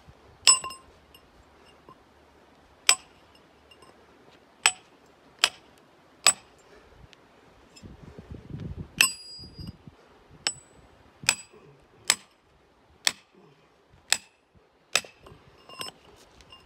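Hand sledgehammer striking a steel chisel bar driven into rock, about thirteen sharp ringing metal clinks spaced roughly a second apart. A duller scraping of the bar in the hole comes around the middle.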